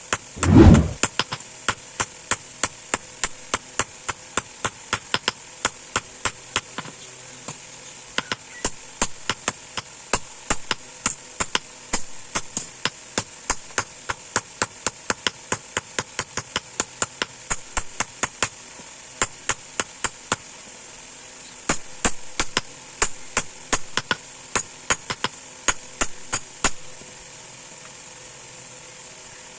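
Hammer blows ringing on steel, about two to three strikes a second with a couple of brief pauses, stopping near the end: leaf-spring steel being hand-forged into a knife blade. One heavy low thud comes just under a second in.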